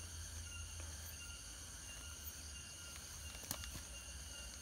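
Faint, steady high-pitched chorus of insects over a low background rumble, with one small click about three and a half seconds in.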